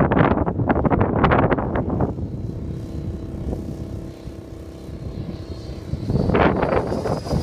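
Model airplane's motor and propeller running with a steady drone. Gusts of wind buffet the microphone for the first couple of seconds and again near the end.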